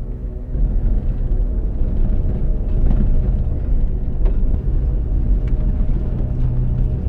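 Low, steady road rumble of a car driving, heard from inside the cabin, swelling about half a second in, with soundtrack music underneath.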